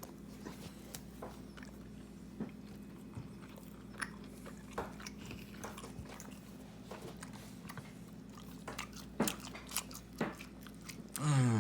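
A person chewing dried, salted walleye jerky, with scattered small crunches and clicks over a steady low hum.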